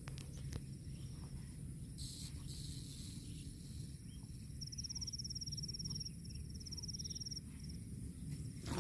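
An insect trilling in high, fast-pulsed stretches: one long trill about halfway through, then a shorter one, over a steady low rumble.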